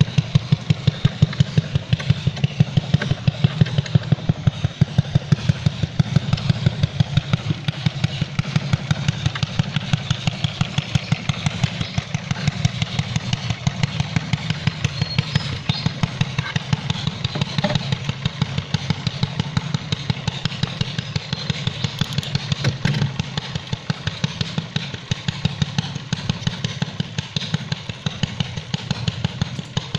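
A small engine running steadily, with a regular pulsing beat that does not change.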